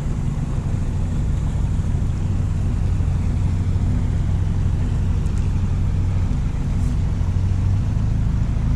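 A boat's outboard motor idling steadily in neutral, a low even hum.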